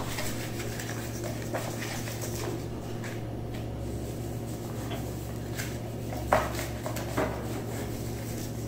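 Toddlers' hands rubbing and patting flour in a stainless steel plate, with a few sharp clinks of a small metal spoon against the steel, the loudest two in the second half. A steady low hum runs underneath.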